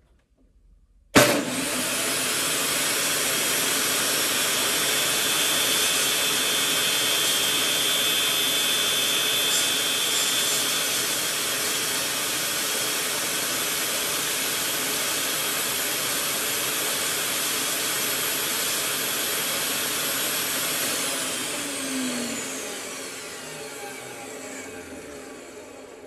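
Portable electric table saw switched on about a second in and running steadily at full speed while a small wooden knife-handle blank is pushed through the blade. Near the end it is switched off and spins down, its whine falling in pitch as it fades.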